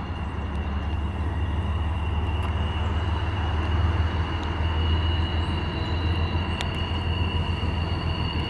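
CSX diesel freight train running on the line: a steady low drone with rail noise, and a faint steady high whine above it.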